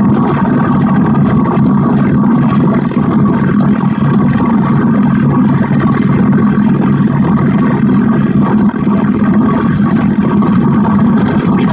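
Noise-electronics improvisation on synthesizers and a drone box: a dense, steady electronic drone with a strong low hum and a haze of noise above it.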